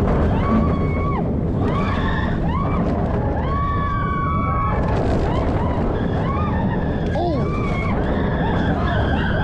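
Riders on a steel roller coaster screaming and whooping through its inversions. Under them runs the steady rush of wind on the microphone and the rumble of the train on the track.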